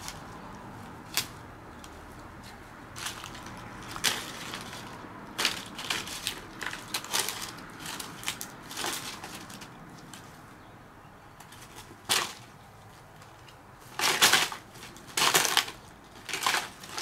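Dry fallen leaves crackling and rustling in irregular bursts as a cat pounces and paws in them, loudest near the end.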